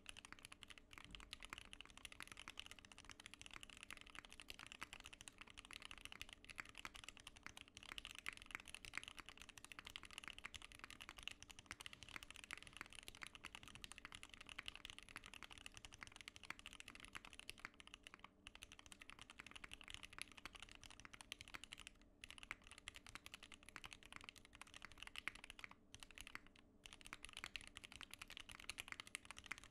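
Continuous typing on a Kira80 tenkeyless custom mechanical keyboard with lubed and filmed Mauve switches in an aluminum plate and GMK keycaps: a dense, fast stream of keystroke clacks, with a few brief pauses in the second half.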